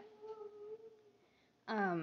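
A person's wordless voice: a soft steady hum, then near the end a short, louder vocal sound falling in pitch.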